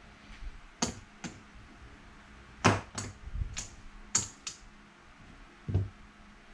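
Casino chips clicking as they are picked up, moved and stacked on a felt craps layout: about eight sharp separate clicks, the loudest about two and a half seconds in. A heavier knock near the end as the table's ON/OFF puck is set down.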